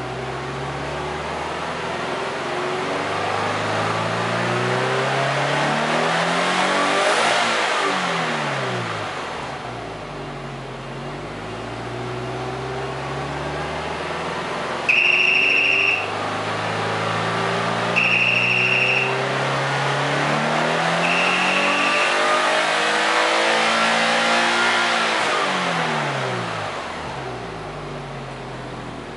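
Subaru Impreza WRX STI (GDB) 2.0-litre turbocharged flat-four, fully warmed up, heard at the exhaust while being revved in neutral. The revs climb for about seven seconds and drop back, then climb again for longer and fall away near the end. Midway, three short high beeps sound about three seconds apart.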